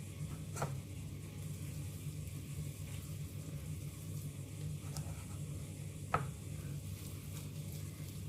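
Steady low hum, with a few soft wet squishes and three brief clicks as hands work thick conditioner through wet hair.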